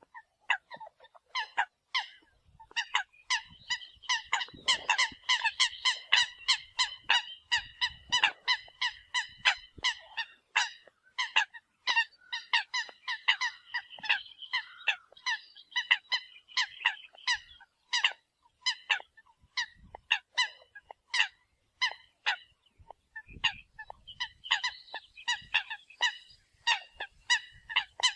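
Eurasian coots calling: many short, sharp honking notes in quick succession, several a second, a decoy-call recording of the birds.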